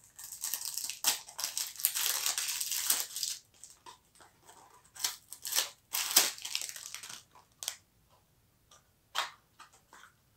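Wrapping of a small cardboard eau de toilette box crinkled and torn by hand as the box is opened: a long crackling stretch over the first three seconds, shorter rustling bursts midway, and one brief sharp tap near the end.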